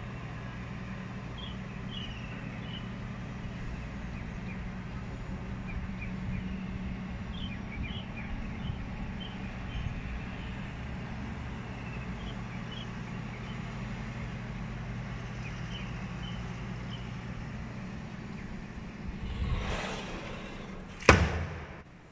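Steady low hum of ambient noise with faint short high chirps scattered through it. Near the end a brief rush of noise, then one sharp, loud knock as the window frame is handled.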